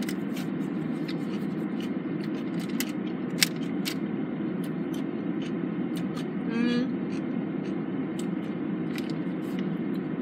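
Crisp crunching clicks of a crunchy dill pickle being chewed, over the steady low hum of a car's air conditioning. A short pitched "mm" sound comes about six and a half seconds in.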